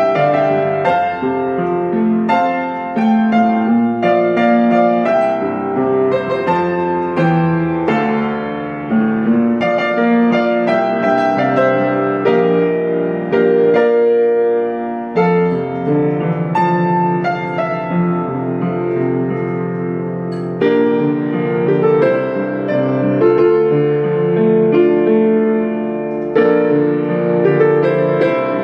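Solo piano played by hand: a pop song arrangement with a melody in the right hand over held chords in the left.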